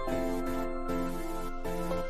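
Background music: a gentle melodic instrumental tune with notes changing about every half second.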